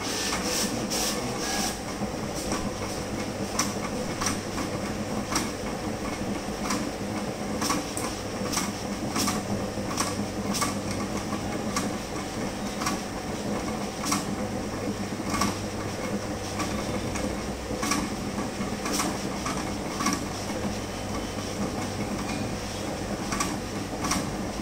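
Wide-format plotter running, its carriage working across a sheet of printed stickers: a steady mechanical hum with sharp clicks coming irregularly, about once or twice a second.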